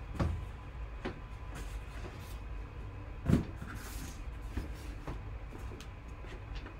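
Sealed cardboard boxes being shifted and set down on a table: a handful of dull knocks with some scuffing, the loudest about three seconds in.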